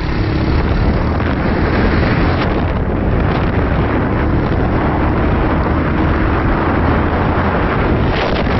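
Wind buffeting the microphone on a moving motorcycle, with the bike's engine running steadily underneath.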